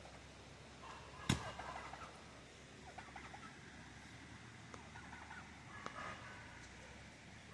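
Bird calls in a few short runs of quick notes, with a single sharp knock about a second in.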